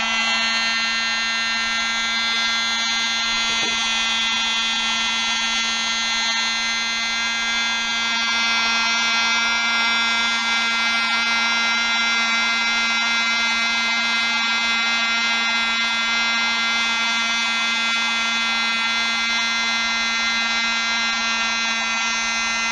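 USB-powered mini vacuum cleaner's small electric motor running at full speed with a steady, high-pitched whine while vacuuming breadcrumbs.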